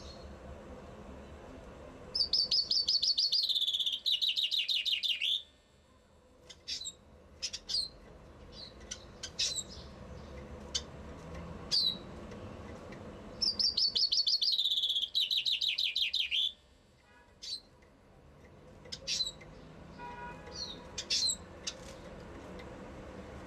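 Caged common chaffinch singing two songs about ten seconds apart, each a fast trill of about three seconds that falls in pitch. Short, sharp single call notes are scattered between the songs.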